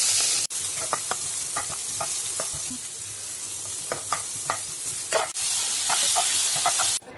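Food sizzling in a hot pan while it is stirred, the utensil scraping against the pan again and again. The sizzle is louder at the start, drops abruptly about half a second in, and swells again about five seconds in before cutting off near the end.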